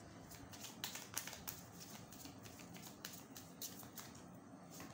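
A deck of tarot cards being shuffled by hand: faint, irregular clicks and flicks of card against card.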